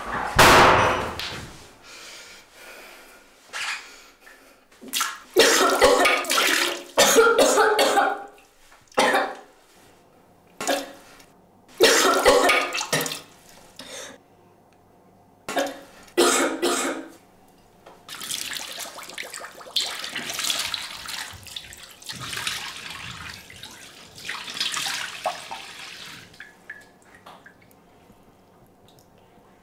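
Water splashing in several loud bursts, mixed with coughing and sputtering, then quieter, longer water sounds.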